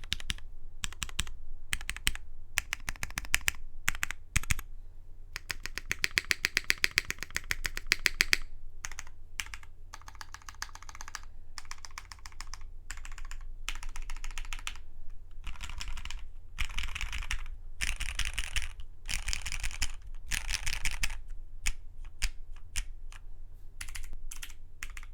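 Typing on a Matrix 2.0add mechanical keyboard with an aluminum plate, lubed retooled Cherry MX Black linear switches and CRP keycaps. The keystrokes come in quick runs broken by short pauses, with a few single strokes in between.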